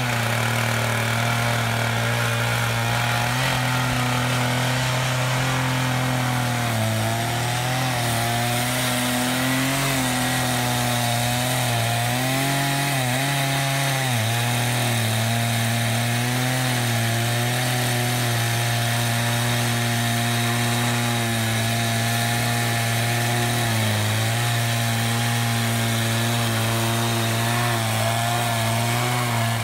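Stihl two-stroke chainsaw powerheads on a double-ended 87-inch mill bar, running at full throttle while ripping lengthwise through a large redwood log. The engine note sags briefly several times as the bar loads up in the cut, then the saws cut off at the very end.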